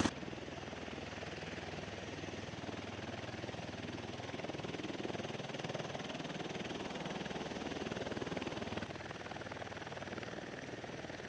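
Bell Boeing V-22 Osprey tiltrotor's rotors and twin turboshaft engines running, a steady drone with a fast pulsing beat that swells a little in the middle and eases off near the end.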